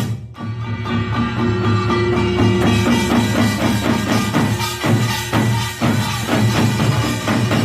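Korean pungmul percussion ensemble playing a fast, dense rhythm of drum and gong strokes, picking up again after a short break at the start.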